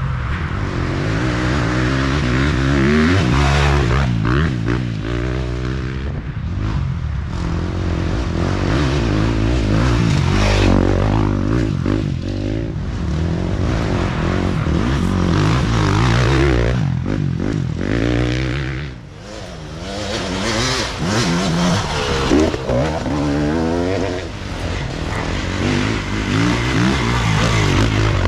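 Dirt bike engine heard from the rider's own onboard camera, revving up and falling back again and again as the throttle is worked, with a short drop where the throttle is closed about nineteen seconds in.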